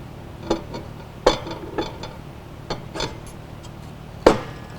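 Metal parts clinking and knocking, about six separate sharp clicks, the loudest near the end, as the sanding drum of a Galaxy BD12 floor sander is worked onto its keyed shaft.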